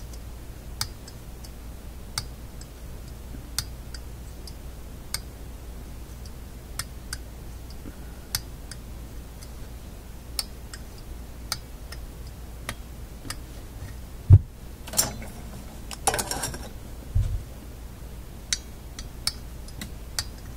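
A horseshoe magnet is stroked again and again along a small permanent magnet held in locking pliers, to re-magnetize it. It gives a light metallic click at each stroke, about every second and a half. Past the middle come a low thump and a short burst of handling clatter.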